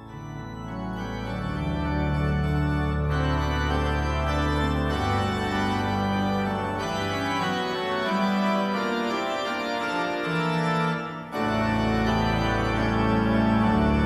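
Organ music: sustained chords over a deep held bass line, swelling in at the start, with a short break about eleven seconds in before the chords resume.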